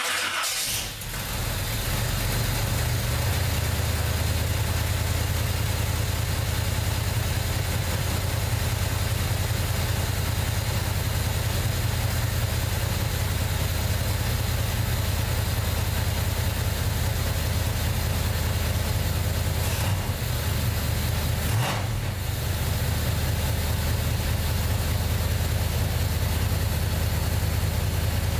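1990 Chevy Camaro's small-block Chevy 350 with Holley Sniper throttle-body fuel injection, cold-started in freezing weather. It catches with a short flare at the very start, then idles steadily. Two brief clicks come about 20 and 22 seconds in.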